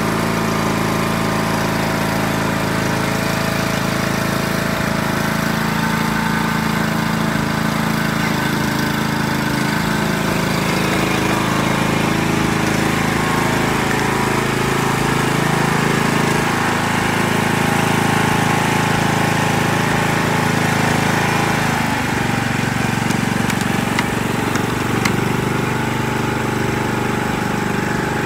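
John Deere riding lawn mower's engine running steadily, its note shifting a little late on.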